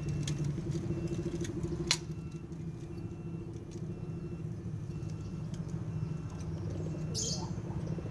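A motor engine running steadily, a low even drone with a fast pulse, with a sharp click about two seconds in and a brief rustle near the end.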